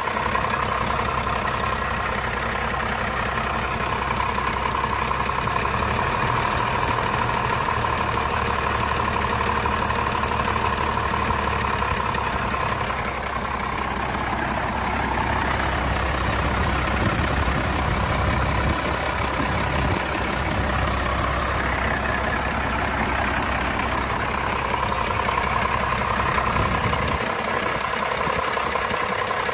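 1989 Dodge Ram's 12-valve Cummins 5.9-litre inline-six turbo diesel idling steadily with the hood open, heard up close over the engine bay.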